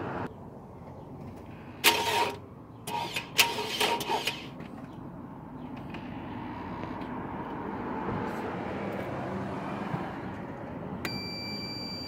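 Toyota VVT-i car engine cranking and catching in a few short bursts, then running steadily at idle. A high electronic beep sounds about a second before the end.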